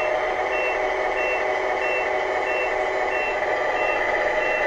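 Tamiya RC tow truck backing up, its sound unit sounding a reversing beeper: a high beep about three times every two seconds, over the truck's steady whine.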